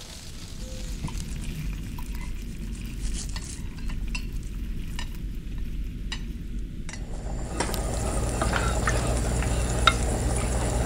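Soft scattered clicks and knocks over a low hum, then from about seven seconds in, food sizzling in a frying pan, with a steady hiss and occasional sharp crackles.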